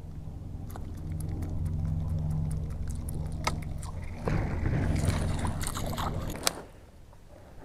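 A topwater pencil lure being worked across the surface, splashing and spitting water, over a steady low mechanical hum with light ticks. The hum and splashing stop suddenly about six and a half seconds in.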